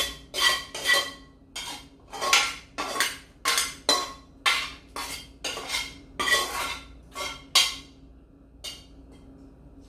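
A ladle scraping against the inside of a tilted metal pan, scooping out cooked vegetables in quick repeated strokes of about two a second. The pan rings faintly with each stroke. The strokes stop about a second before the end.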